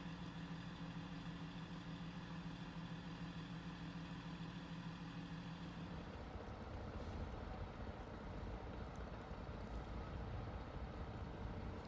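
A motor vehicle engine running steadily with a low, even hum. About halfway through, the sound shifts to a rougher, noisier rumble.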